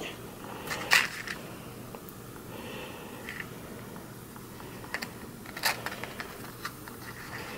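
A handful of light clicks and taps from a small metal safety razor and a matchbox being handled, the sharpest about a second in and another near six seconds, over a faint steady hum.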